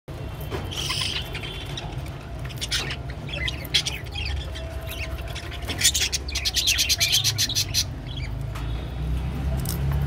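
Budgerigars chirping while their beaks click and crunch at water spinach leaves, with a quick run of clicks about six seconds in. A steady low hum underneath.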